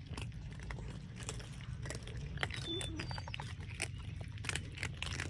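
Cats chewing dry kibble: a steady run of small, irregular crunches from several cats eating at once.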